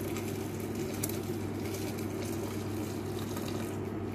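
Hot boiled milk poured in a steady stream from a glass bowl into a clay pot of raw rice, splashing and gurgling, over a steady low hum.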